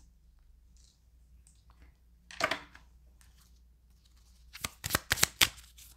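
A deck of tarot cards handled in the hands: a brief soft rustle about halfway, then a quick run of card flicks near the end as the deck is shuffled.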